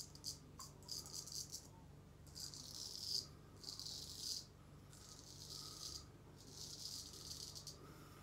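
C.V. Heljestrand straight razor scraping through lathered stubble on the neck. A series of short, crisp rasping strokes, each up to about a second long, with brief pauses between them.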